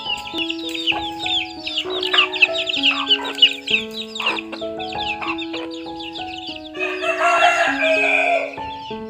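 Slow instrumental melody of held notes over constant high chirping of small birds; a rooster crows once for about two seconds, about seven seconds in.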